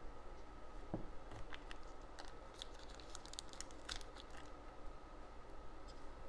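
A soft knock about a second in, then faint crinkling and rustling of a crumpled towel as excess damper grease is wiped off small helicopter-head parts and fingers.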